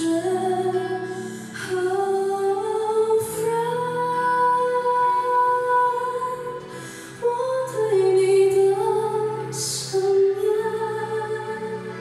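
A young woman singing a slow Mandarin ballad live into a handheld microphone over a sustained accompaniment, holding some notes for a couple of seconds.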